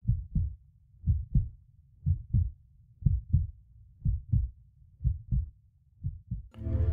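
Heartbeat sound effect: slow, evenly paired low thumps (lub-dub), about one beat a second, seven in all. Just before the end, music with sustained low tones comes in.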